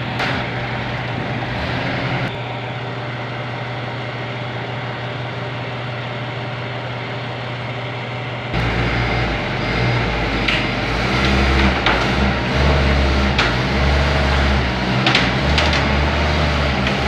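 Forklift engine running steadily, then working harder from about halfway through, with a louder, uneven low rumble. A few knocks sound near the end.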